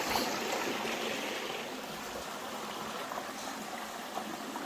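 Water of a small creek running steadily.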